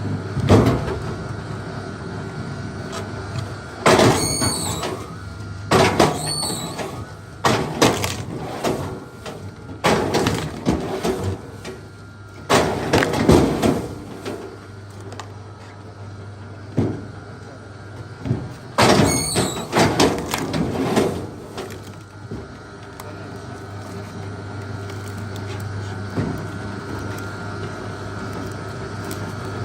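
Big wood cracking and creaking as it is worked, in a series of loud bursts, several with a squealing creak, over a steady low hum.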